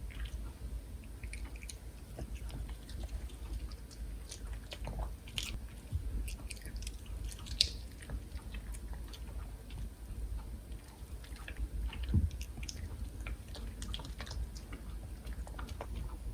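Pomeranian chewing and biting food, likely sweet potato, with irregular small crunches and mouth clicks, a few sharper bites standing out near the middle.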